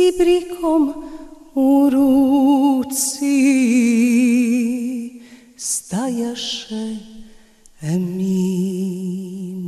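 A solo voice singing a slow melody in long held notes with strong vibrato, phrase after phrase with short pauses between.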